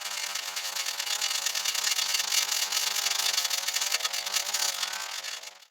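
Small two-stroke engine of a handheld power tool, a brush cutter or chainsaw, running hard under load, its pitch wavering as it cuts, with a loud rasping cutting noise over it. The sound cuts off abruptly at the very end.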